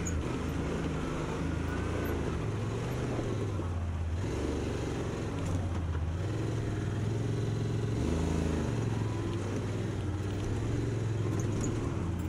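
Yamaha Wolverine X2 side-by-side's 847cc parallel-twin engine, heard from inside the cab while crawling slowly over boulders. Its pitch rises and falls repeatedly as the throttle is fed on and off, with a brief easing about four seconds in.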